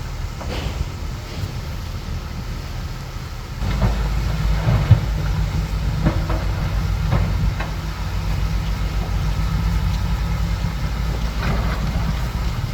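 Bulldozer's diesel engine running under load, getting louder about three and a half seconds in, with scattered metallic clanks.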